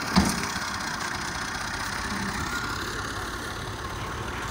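Massey Ferguson farm tractor's diesel engine running steadily, with a single sharp thump just after the start.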